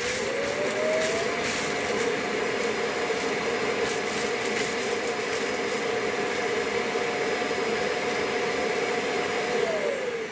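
Proscenic M7 Pro self-emptying dock's suction motor emptying the docked robot vacuum's dustbin. A steady whine over rushing air, with scattered ticks in the first few seconds. Near the end it winds down with a falling whine.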